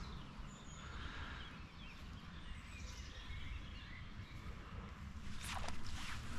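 Faint bird chirps over a steady low rumble, with a few short clicks about five and a half seconds in.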